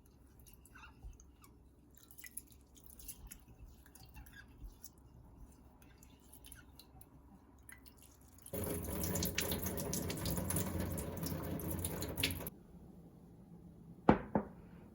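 Faint drips and small clinks, then water runs from a tap for about four seconds and stops; two sharp knocks follow near the end.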